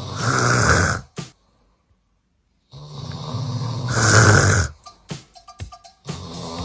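A man snoring loudly: two long snores, the first about a second long and the second about two seconds long, with a moment of dead silence between them. A third snore starts near the end.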